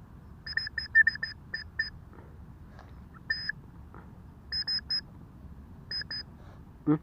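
White-breasted woodswallow (kekep babi) giving short, sharp, harsh calls in quick runs: about seven in the first one and a half seconds, then a single call, a group of three, and a pair near the end.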